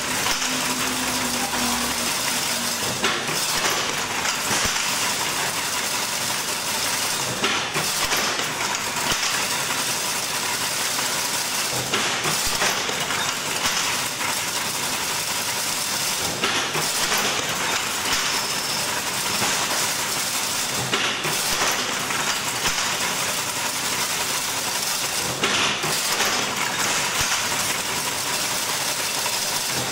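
Automatic chain-link fence weaving machine running. Its noise is steady and mostly high-pitched, with a change in the sound that repeats about every four and a half seconds.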